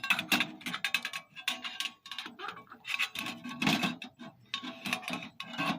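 Irregular metallic clicks, clanks and short scrapes from a stainless-steel tent wood stove being handled with a tool stick, working its door and fittings during its first burn.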